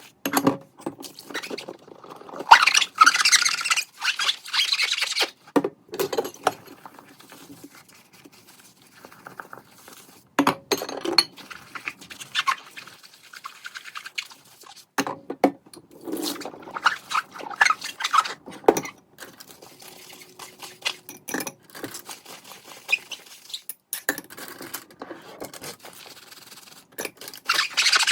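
Kitchen tidying sounds: a run of short knocks and clicks as things are handled and set down, with a few longer stretches of rubbing or scrubbing, the loudest a few seconds in.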